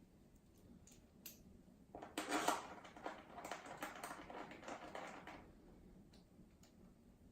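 Faint clicks and light rattling of small tools and metal parts being handled, with a denser stretch of scraping and rattling from about two to five and a half seconds in.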